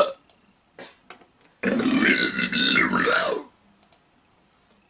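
A man's long, loud belch lasting nearly two seconds, starting about a second and a half in, its pitch wavering as it goes.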